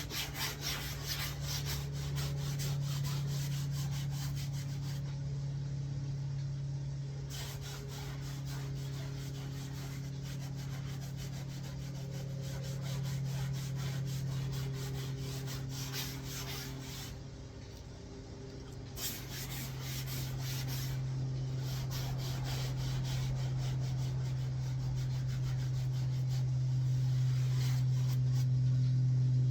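Fabric upholstery being scrubbed by hand with wet cleaner, in spells of fast rubbing strokes with short pauses, over a steady low hum.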